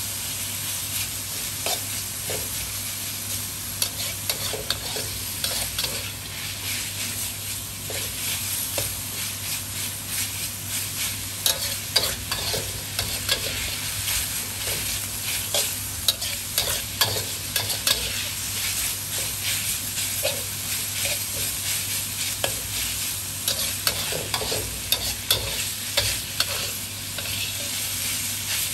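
Sliced pork belly sizzling in a wok as it is stir-fried, with a metal spatula scraping and clicking against the pan many times at an irregular pace.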